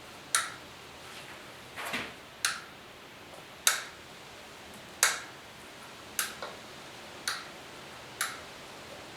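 A series of about eight sharp, short clicks, roughly one a second but not evenly spaced, over a low steady hiss.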